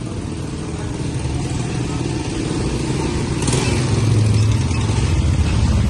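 A motor vehicle's engine running and growing louder as it comes closer, with a brief hiss about three and a half seconds in.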